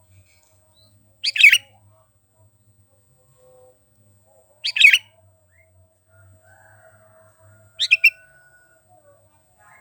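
Sooty-headed bulbul (kutilang) giving three short, loud calls, about three seconds apart.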